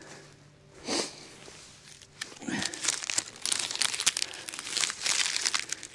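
Close rustling and crackling on a body-worn wireless microphone as the wearer moves about, dense and irregular from about two seconds in, after a brief rush of noise about a second in.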